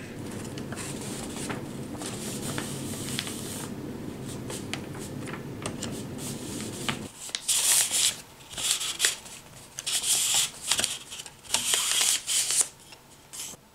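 Wrapping paper rustling and sliding in a series of short bursts, about halfway through, as it is wound by hand onto a K'nex roller. Before that, a steady low hum runs and then stops abruptly.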